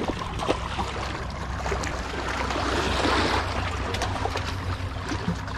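Water washing and splashing against shoreline rocks, a steady rush with a few small clicks and knocks.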